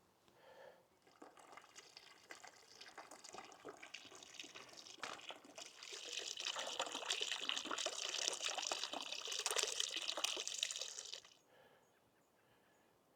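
Stream water running and splashing over rocks, growing louder about halfway through, then cutting off suddenly near the end.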